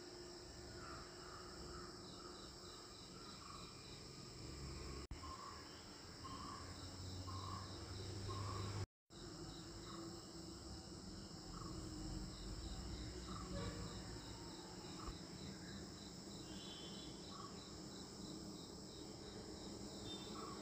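Faint insect chirping: a thin, high pulse repeating about four times a second over a low background hiss, with a brief dropout about nine seconds in.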